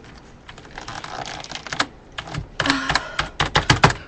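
Computer keyboard keys clicking and clattering under fingers, a few taps at first and then a quick run of loud key presses in the second half.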